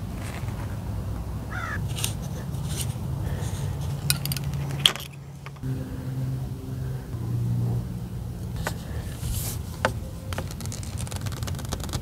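Clicks, light knocks and scrapes of PVC pipe and fittings being handled and fitted together, over a low steady rumble.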